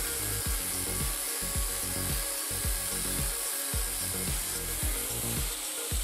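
Angle grinder with a cut-off disc cutting into a steel plate, a steady grinding hiss, over background music with a steady beat.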